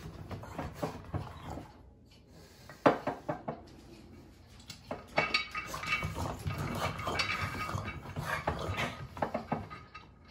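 A pug spinning in circles on a kitchen rug: a patter of light clicks and clinks from its feet and claws, thin at first, with a quieter moment about two seconds in, then busier from about five seconds in.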